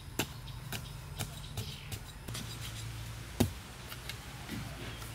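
A series of short, sharp knocks, about two a second for the first two seconds, then sparser, with one louder knock about three and a half seconds in.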